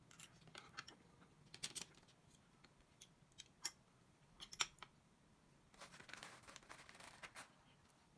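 Faint handling noises: scattered sharp clicks and snips, then a little over a second of crinkly rustling near the end.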